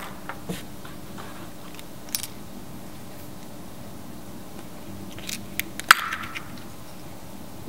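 A hand reaching into the wooden slot of a kinetic sculpture: a few light clicks, then near six seconds a cluster of sharp clicks and a brief scrape against the opening. A faint steady hum sits underneath.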